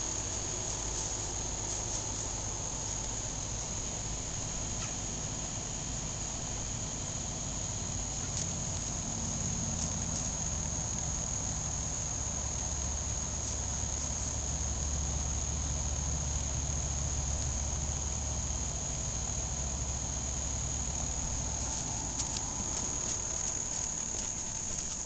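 Steady, high-pitched chorus of summer insects, an unbroken drone, with a low rumble underneath midway.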